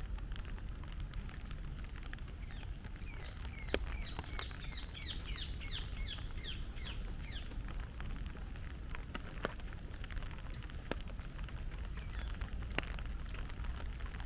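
Steady heavy rain with scattered sharp drop ticks. A small songbird calls a quick run of short falling chirps from about three to seven seconds in.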